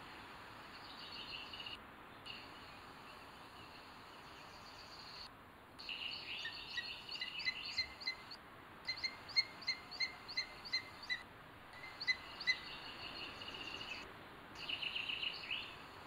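Wild birds singing: a run of short, repeated whistled notes, about three a second, through the middle, with short trilled phrases near the start and near the end, over a steady hiss.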